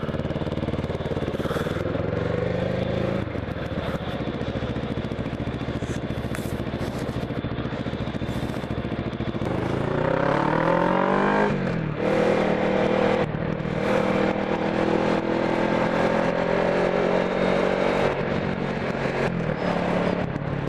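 Motorcycle engine running under way: its pitch rises steeply as it accelerates about ten seconds in, breaks at a gear change around twelve seconds, then holds steady at a higher pitch.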